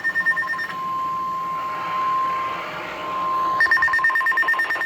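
Emergency Alert System broadcast signalling: a buzzy, rapidly warbling two-tone SAME digital data burst cuts off about a second in. A steady single-pitched weather-radio warning alarm tone follows for nearly three seconds, then another buzzy data burst starts near the end.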